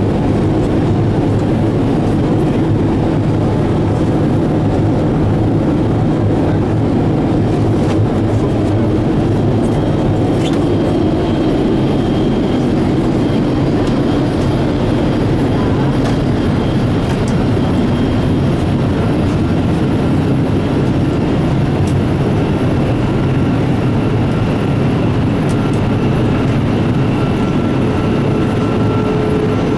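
Steady cabin noise inside a Boeing 787 Dreamliner in flight: an even rush of engine and airflow noise, unchanging throughout.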